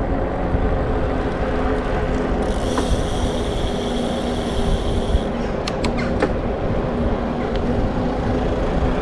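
Bicycle riding on a paved path, heard from the bike: a steady low rumble of tyres and wind on the microphone. From about two and a half seconds in, a high ticking whirr from the bike's drivetrain runs for about three seconds, followed by a few sharp clicks.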